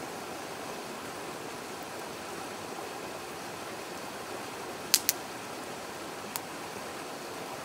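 Split firewood burning in a fire pit, crackling with two sharp pops about five seconds in and a smaller one a little later, over the steady rush of a river.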